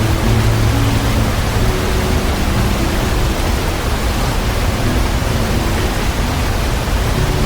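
Waterfall roaring: a loud, steady rush of falling water with no breaks.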